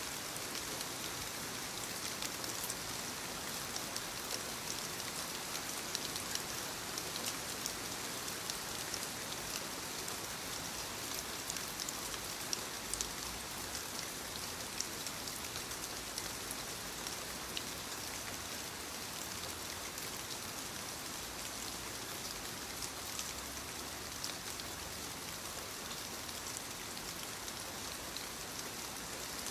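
Light rain falling steadily on leaves: an even hiss dotted with many small, sharp drop taps.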